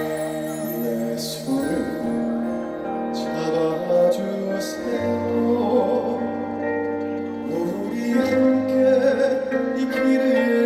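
A man singing a trot song into a handheld microphone over instrumental accompaniment, amplified through a stage PA.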